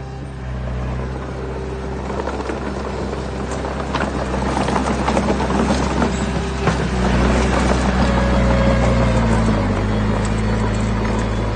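Heavy-equipment diesel engine running steadily, its pitch shifting a little past the middle, with irregular clattering and scraping from about four to seven seconds in.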